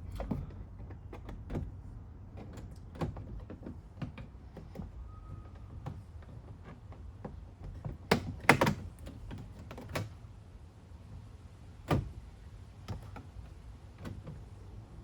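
Scattered clicks and knocks of hands and tools working on a van's interior door trim, with the loudest knocks about eight and a half seconds in and another at twelve seconds.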